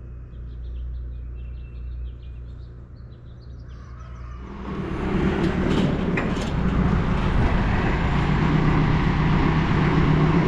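Birds chirping over a low steady rumble, then about four and a half seconds in a loud engine-driven machine comes up and runs steadily.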